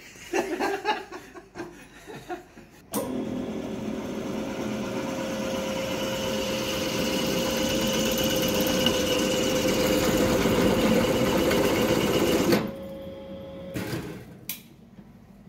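Drill press running, its bit boring into a crankshaft counterweight to take weight off for balancing a 383 small-block Chev stroker. The motor and cutting sound, with a steady whine, starts suddenly about three seconds in and stops near the end, and the whine dies away over about a second.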